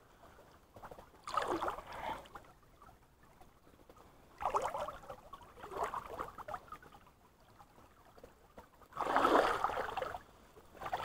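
River water splashing and sloshing around the legs of someone wading across a shallow rocky stream. It comes in about four separate bursts with quieter stretches of running water between them.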